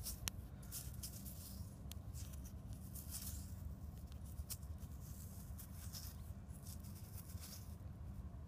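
Faint handling noise: scattered clicks and short scratchy rustles over a low steady rumble.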